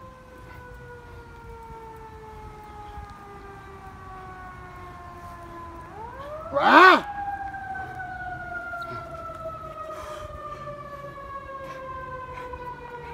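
Emergency vehicle siren wailing: each cycle rises quickly, then falls slowly for about six seconds, with a new rise about six seconds in and another at the end. A short, loud blare cuts in about seven seconds in.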